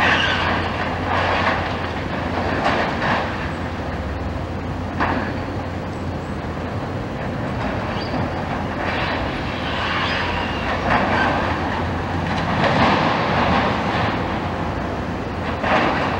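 Komatsu long-reach demolition excavator running steadily with a constant low engine hum. Its jaw attachment crunches and scrapes through building debris in irregular bursts every few seconds.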